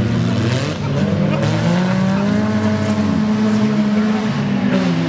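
Engines of several old banger-race cars revving up and easing off, their pitches rising and falling over one another.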